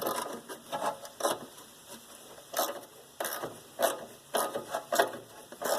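Ratcheting wrench clicking in short strokes, roughly every half second, as it turns the mounting bolts of an air conditioner's sealed-unit compressor.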